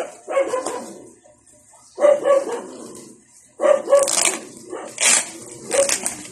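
A dog barking in short bursts, four or five times, over the crinkling and tearing of thin black plastic wrapping being pulled open by hand.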